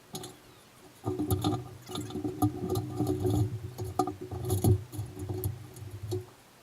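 A small machine starts about a second in and runs with a steady hum, with rattling clicks over it, then stops abruptly after about five seconds.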